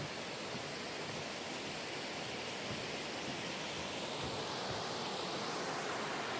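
Steady rushing of water from a mountain valley stream, an even noise that holds without a break.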